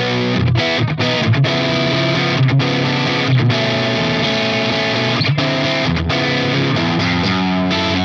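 Soloking MT-1 Classic electric guitar with humbucking pickups played with a driven, distorted amp tone. Ringing chords and riffs are cut short by brief stops as the chords change, about eight times.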